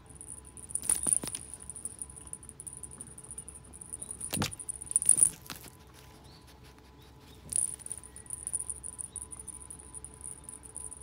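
A high, steady insect trill that stops for about two seconds partway through, with a few sharp knocks and rustles about a second in and again around the fifth second as a cat bats at a feather teaser wand.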